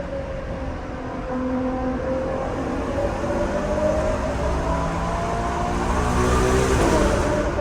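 Ferrari Purosangue's V12 engine accelerating, its pitch climbing steadily through a gear and getting louder, then dropping sharply with an upshift about seven seconds in; heard from inside the car.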